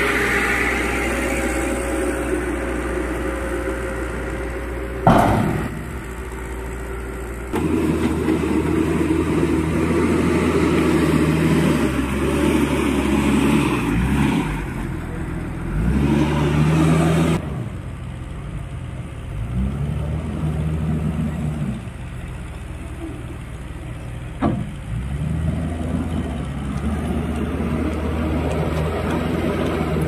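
Heavy diesel engines of earth-moving machines running: a tipper truck unloading soil, then a JCB 432ZX wheel loader working, its engine revving up and down. There is a sharp knock about five seconds in and another shorter one near twenty-five seconds.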